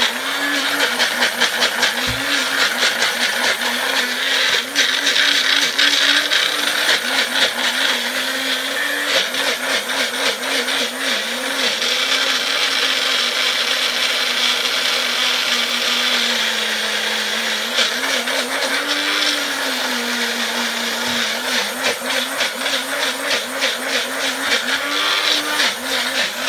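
Magic Bullet blender motor running continuously, chopping chunks of green apple, ginger and lemon with no liquid added. Its pitch wavers up and down as the load on the blades changes.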